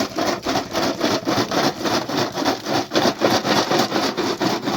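Hand saw cutting through wood in quick, even back-and-forth strokes, about five or six a second.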